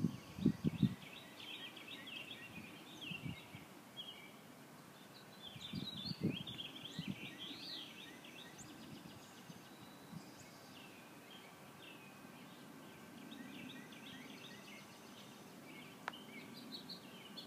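Background birdsong: several birds chirping, a steady scatter of short high notes, over a faint outdoor hiss. A few low thumps come just under a second in and again about six seconds in.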